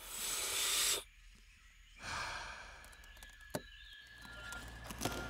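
Two-way radio static: two hissy bursts of about a second each, a second apart, with sharp clicks. A low steady rumble sets in about four seconds in.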